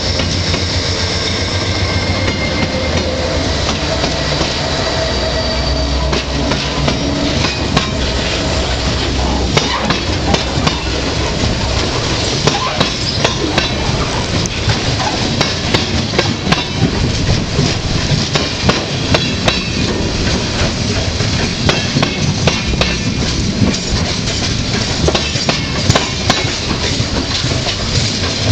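Freight train passing close by. A diesel locomotive rumbles past in the first few seconds with a faint high wheel squeal. Then freight cars roll by, their wheels clattering sharply and often over rail joints.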